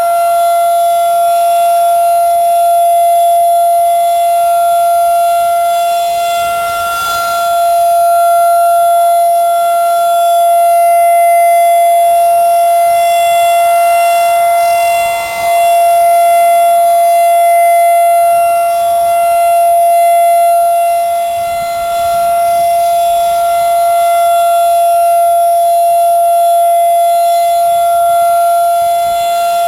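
Outdoor tornado warning siren sounding a steady, unwavering tone during its monthly test. Its loudness dips briefly about every eight seconds as the rotating horn turns away and back.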